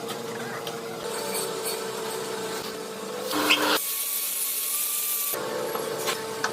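Metalworking tool noise in a workshop: a steady machine hum with rubbing and scraping of tools on metal. About four seconds in, it gives way for about a second and a half to a high hiss with a thin steady whine, then the hum and scraping return.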